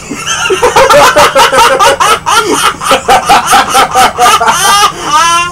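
A person laughing hard in rapid, repeated bursts, about four to five a second, ending in a high rising squeal near the end.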